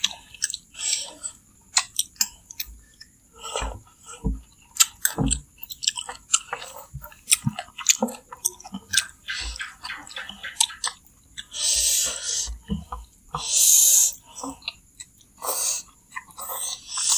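Close-miked slurping and chewing of chicken noodles in broth (mie ayam), with many short sharp clicks throughout. Several longer hissing slurps come in the second half as mouthfuls of noodles are sucked in.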